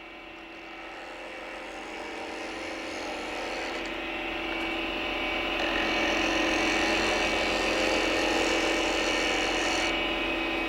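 Wood lathe running with a turning tool cutting a spinning ball of satiné bloodwood: a steady motor hum under a hissing cut that builds up over the first few seconds and then holds steady. The cut is smoothing out, the sign that the ball is coming round.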